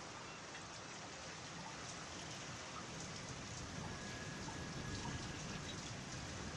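Rain falling steadily, a soft, even hiss of drops.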